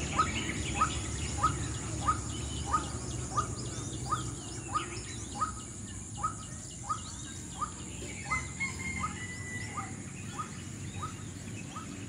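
Outdoor birdsong: one bird repeats a short falling note about every two-thirds of a second, while other birds chirp more faintly, over a steady low background noise.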